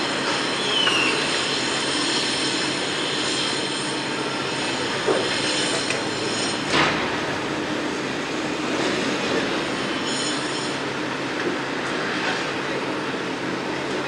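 Construction site din: a steady mechanical rumble with high metallic squealing, and two sharp knocks about five and seven seconds in, the second the louder.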